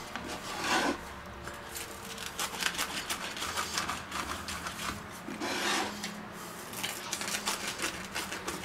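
Wheel pizza cutter rolling through baked pizza crust and scraping over a wooden board, in a series of irregular crunching, rasping cutting strokes.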